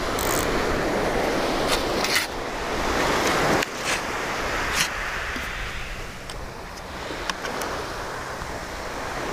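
Sea surf washing against a rocky shore: a steady rush that swells for the first few seconds and drops off suddenly about three and a half seconds in, with a few faint clicks.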